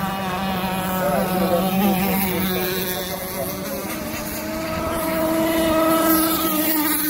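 Radio-controlled racing catamarans powered by Zenoah two-stroke gas engines running flat out. Several engine notes overlap, their pitches shifting as the boats pass.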